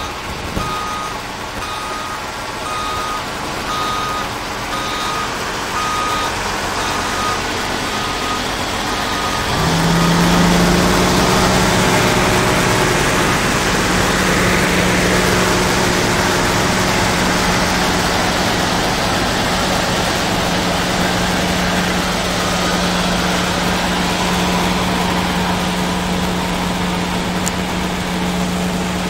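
A reversing alarm beeps steadily about every three-quarters of a second for the first eight seconds or so. About ten seconds in, the diesel engine of a semi truck hauling a loaded flatbed trailer comes in loud and keeps running steadily to the end.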